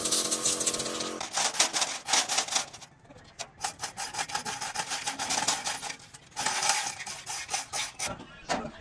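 Quick repeated scraping and rubbing strokes of hand work, in runs broken by short pauses. A steady hum at the start stops about a second in.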